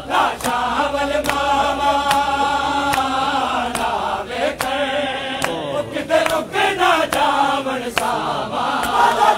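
A group of men chanting a Punjabi noha, a mourning lament, in sustained unison lines. Their bare chests are struck by hand in matam, giving sharp slaps at a regular beat of about two a second.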